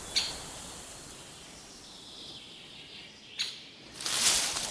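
Rainforest ambience with two short, sharp bird calls, one just after the start and one about three and a half seconds in, then a louder hissing rustle near the end.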